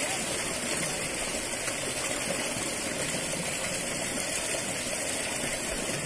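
Water rushing steadily through a narrow concrete irrigation ditch and under a small culvert, an even, unbroken noise.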